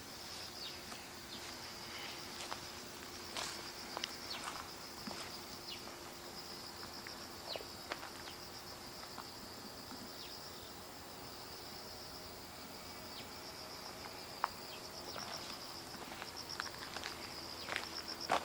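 Insects trilling steadily in a high, rapid pulsing chorus, with scattered light clicks and crunches over it.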